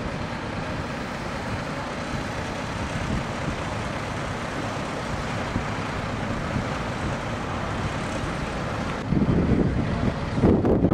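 Steady noise of heavy truck engines running. About nine seconds in it gives way to louder, uneven low gusts, like wind buffeting the microphone.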